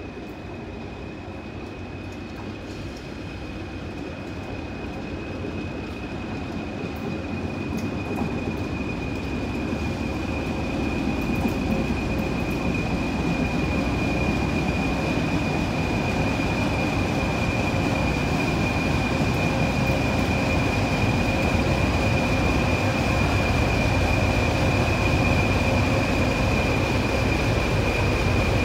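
A pair of Class 20 diesel locomotives, English Electric eight-cylinder engines, rumbling as they draw in slowly and grow steadily louder as they come close. A steady high whistle sounds over the rumble throughout.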